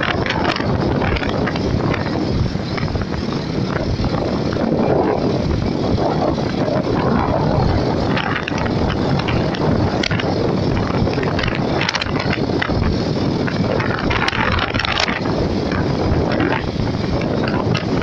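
Wind buffeting the microphone together with tyre and road noise while riding along an asphalt road, a steady rushing noise with gusty flutters.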